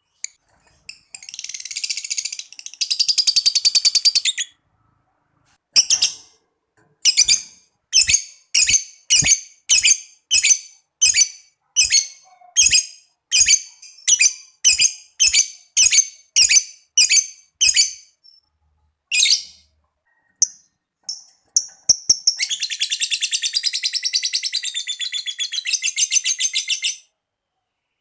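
Lovebird calling: a long, rapid, chattering trill (ngekek), then a steady run of single sharp chirps (ngetik) at nearly two a second for about twelve seconds. A few scattered chirps follow, then another long trill of about four seconds.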